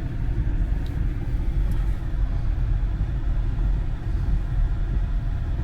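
Steady low rumble of an all-wheel-drive car driving, heard from inside the cabin: engine and tyre noise on the road.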